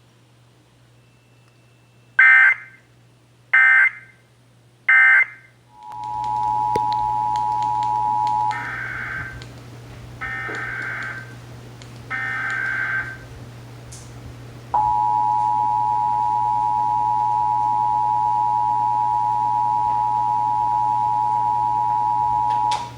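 Emergency Alert System test signals: three short buzzing digital data bursts, then the two-tone attention signal for a couple of seconds, then three more data bursts. The attention signal then sounds steadily for about eight seconds and cuts off just before the end. A low mains-type hum runs underneath.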